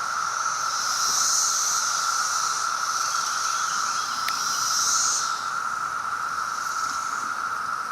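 Chorus of Brood X periodical cicadas: a steady, even drone, with a higher-pitched buzz swelling twice and easing off about two-thirds of the way through.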